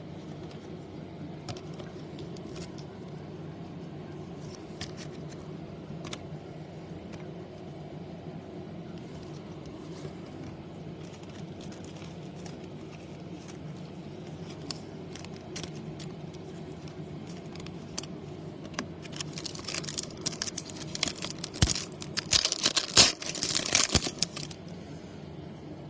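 Trading cards and plastic being handled with scattered light clicks, then a few seconds of loud crinkling and tearing near the end, as a foil trading-card pack wrapper is torn open. A steady low hum runs underneath.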